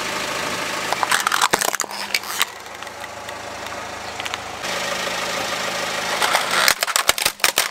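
Car engine idling while a tyre rolls onto a small plastic toy train, cracking and crunching it about a second in. The engine idles again, and from about six seconds a rapid run of loud cracks follows as a plastic toy truck breaks under the tyre.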